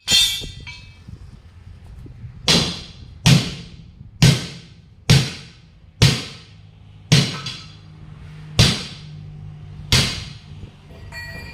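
Hammer blows on a truck wheel and tyre: one strike at the start, then eight more at an uneven pace of about one a second, each with a short metallic ring.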